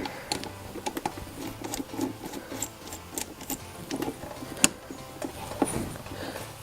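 Irregular metallic clicks and light knocks from a chain riveting tool being worked on a motorcycle chain's masterlink, with one sharper click about four and a half seconds in.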